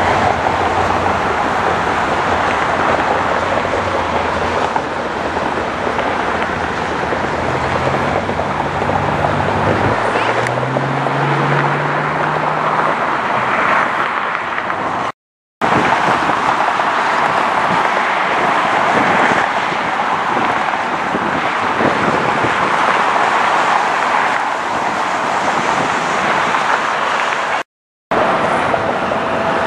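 Steady loud roar of jet airliner engines. A low hum climbs in pitch about a third of the way through. The sound cuts out abruptly twice as the clip changes.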